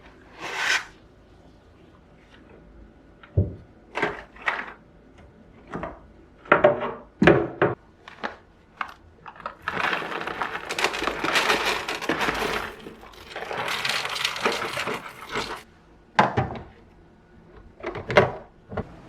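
Household handling sounds, likely kitchen work: a string of separate knocks, taps and clatters of objects being set down and moved. About ten seconds in there are two stretches of steady hissing noise, a few seconds each.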